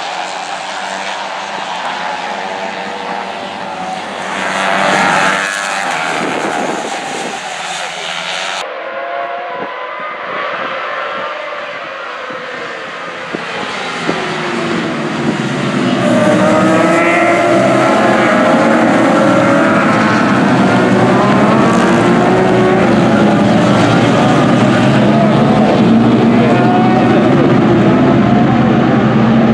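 Racing motorcycles at full throttle: first a few bikes pass with rising engine notes, then from about halfway through a whole pack of race bikes comes past together, many engine notes overlapping and getting louder.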